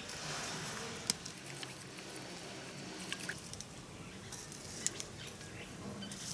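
Quiet food-preparation sounds: a soft squish of sauce squeezed from a plastic bottle near the start, then a few scattered light clicks and clinks of utensils and bowls.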